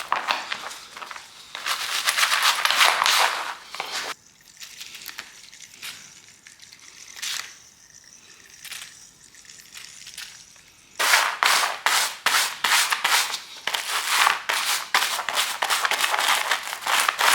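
Brush scrubbing a dirty, WD-40-soaked bike chain in rapid strokes, with a quieter spell of several seconds in the middle before the fast scrubbing picks up again.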